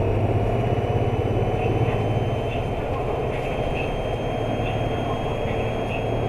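Isuzu Erga bus's 6HK1-TCC diesel engine running with a steady low drone, heard from inside the cabin, with the air conditioning on. A thin steady high-pitched tone sits over it, which the owner takes for noise picked up by the recording gear rather than a sound from the bus.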